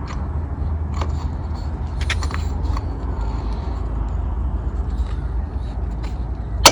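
Light clicks and taps of tools and small carburetor parts being handled over a steady low rumble, with one sharp click at the very end.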